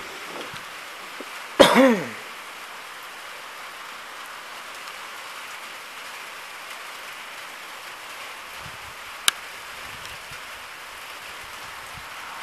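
Steady hiss of rain falling. About two seconds in, a brief throat sound from a person, falling in pitch, is the loudest thing. A single sharp click comes about three quarters of the way through.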